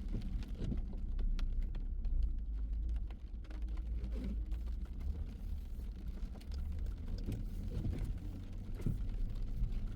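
Car driving in the rain: a steady low rumble from the road and engine, with scattered light ticks of raindrops hitting the car.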